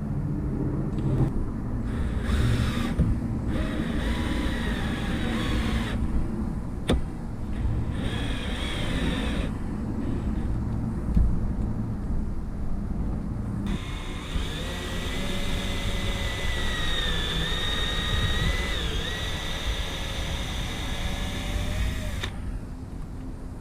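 Cordless drill driving stainless steel screws into the fridge cabinet panels: several short runs, then a longer run of about eight seconds from the middle on, its motor whine wavering in pitch. A steady low rumble sits underneath.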